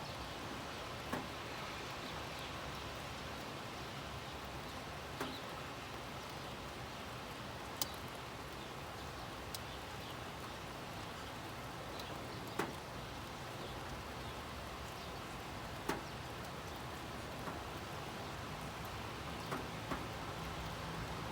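Steady rain, an even hiss, with a sharp tick every few seconds.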